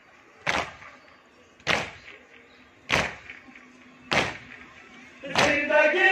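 A group of Shia mourners beating their chests (matam) in unison: five heavy slaps about 1.2 seconds apart, keeping time for the noha. Near the end a chorus of men's voices comes in, chanting the noha.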